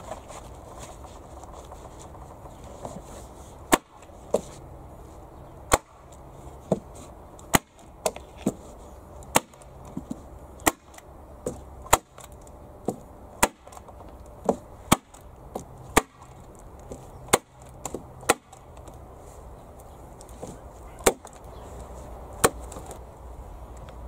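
Staple gun firing staples through a plastic liner into the wooden sides of a planter box: about twenty sharp clacks, irregular, one every half second to a second, starting about four seconds in and pausing briefly near the end.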